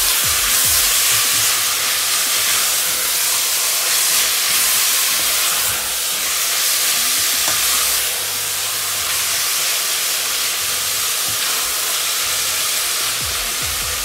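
Minced meat (kefta) and onions sizzling as they fry in a stainless steel pot, with a steady hiss. A spatula stirs and scrapes through the meat throughout.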